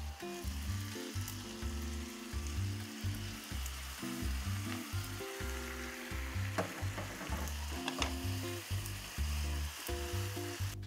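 Spaghetti sizzling in a hot frying pan as a cup of pasta-cooking water is poured in, then tossed and stirred with a spatula, with a couple of sharp clinks of utensil on pan. Background music with a rhythmic bass line plays underneath.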